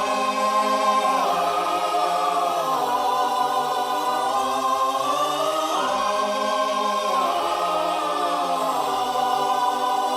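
A choir singing long held chords that change slowly, with no beat or drums.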